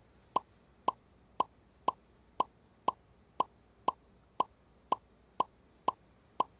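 Quiz-show sound effect: a short pitched blip repeating evenly about twice a second, one blip for each letter revealed on the answer board.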